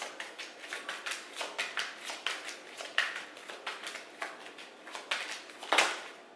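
A deck of tarot cards being shuffled by hand: a quick, irregular run of soft papery clicks and slaps, several a second, with one louder snap near the end.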